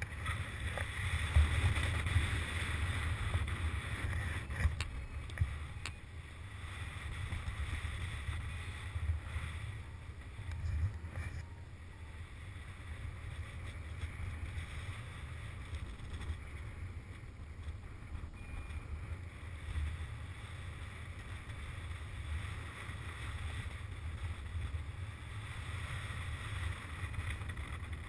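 Wind noise from the airflow of paraglider flight rushing over a GoPro Hero2's microphone: a steady low rumble with a softer hiss above it. It is louder for the first few seconds and eases after about six seconds, with a few faint ticks.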